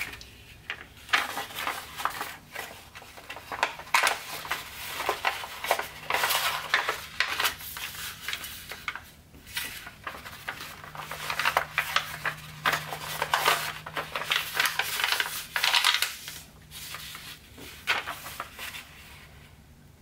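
A large sheet of Tant origami paper being handled and folded by hand: irregular rustling and crinkling as pleats are creased and pressed flat, quieter near the end.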